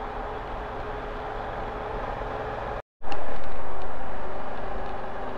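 Road noise from riding a motorcycle: a steady run of engine and wind. The sound drops out completely for a moment about three seconds in, comes back much louder, then slowly gets quieter.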